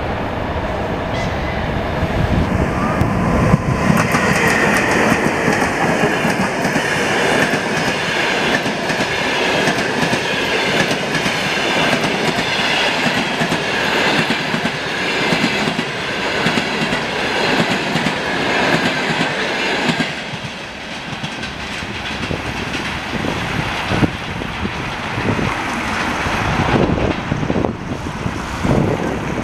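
ChS7 electric locomotive and its passenger coaches passing at speed: a heavy rumble as the locomotive goes by, with a high steady whine for a few seconds, then the steady clickety-clack of the coach wheels over rail joints as the train streams past.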